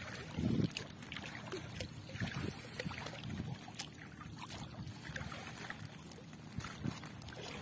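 Water splashing and dripping as a gill net is pulled in by hand, with scattered small splashes and taps over a low rumble.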